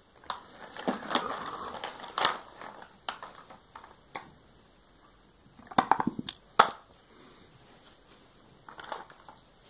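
Plastic toy tractor and dump trailer being handled and pushed over a carpet play mat: scraping and plastic knocks over the first few seconds, then a quick cluster of sharp clacks about six seconds in, and a softer rustle near the end.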